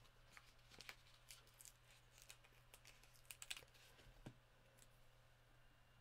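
Near silence with faint, scattered small clicks and taps of paper and card being handled on a desk, a little cluster of them about three and a half seconds in.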